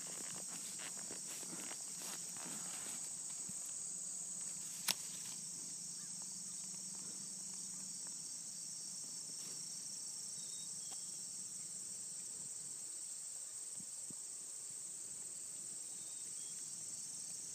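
A steady, high-pitched chorus of insects chirring in the grass, with a single sharp click about five seconds in.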